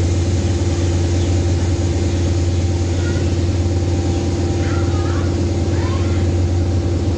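Diesel train engine running steadily close by, a deep, unchanging drone.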